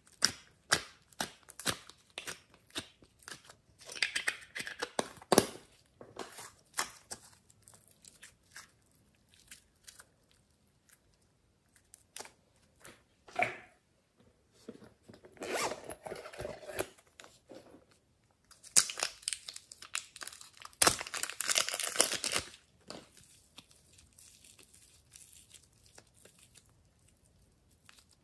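Plastic clay moulds being handled and soft clay pried out of them: scattered clicks and taps of plastic, with several louder stretches of rustling, tearing handling noise.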